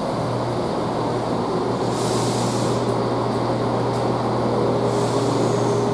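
Chiltern Railways Class 168 diesel multiple unit with its underfloor diesel engines running, giving a steady low hum. A short hiss of air comes about two seconds in.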